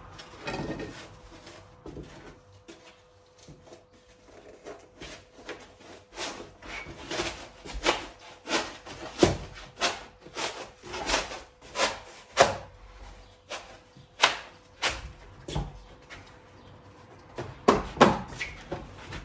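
A foil-faced Kingspan rigid foam insulation board being pushed and knocked into place between timber studs: a run of irregular knocks about once a second through the middle, with foam scraping and rubbing against the wood.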